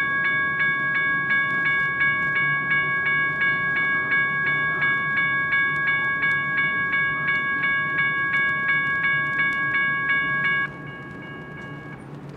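Railroad crossing bell ringing rapidly, about three strikes a second, while the crossing signals are active. It stops abruptly about two seconds before the end, leaving a low background rumble.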